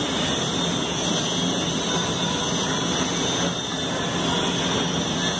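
Steady mechanical hum with an even hiss, unchanging throughout.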